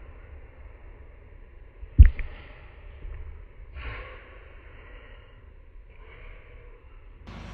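A single loud thump about two seconds in, then short bouts of sniffing and snorting breath from a person whose nose and mouth are smeared with mustard.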